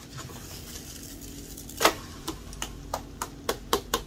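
A plastic slotted spatula tapping and pressing a thin buckwheat pancake in a nonstick frying pan. A run of sharp taps starts about two seconds in, three or four a second, the first one loudest, over a steady low hum.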